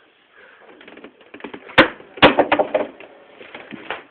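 A man snoring heavily: a sudden sharp snort about two seconds in, then a loud, rattling snore.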